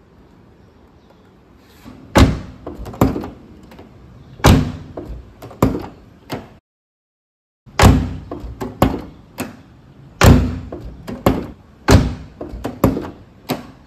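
BMW Z4 door being opened and slammed shut over and over, with rubber door-lock dampers fitted over the latch striker: about a dozen sharp latch clunks and slams in two runs, broken by a second of silence. The owner finds that the dampers soften the closing sound.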